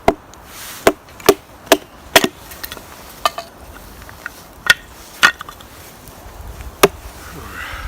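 Dry wood being chopped with a blade: about nine sharp, separate strikes at uneven intervals.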